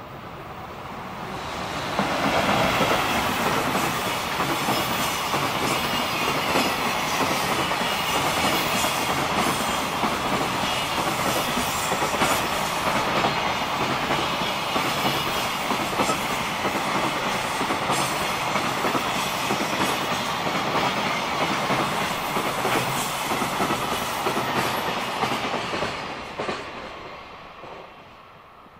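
JR Freight EF210 electric locomotive hauling a long container freight train past, wheels clattering over the rail joints. The rumble builds over the first two seconds, holds steady while the container wagons roll by, then fades away near the end.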